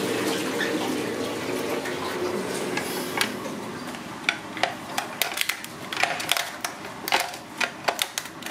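A steady rushing hiss, then from about four seconds in a run of sharp, irregular snips and cracks: kitchen scissors cutting through a cooked mud crab's shell.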